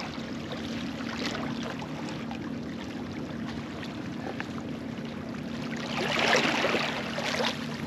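Small sea waves lapping and washing over barnacle-covered rocks at the shoreline, with a louder wash about six seconds in.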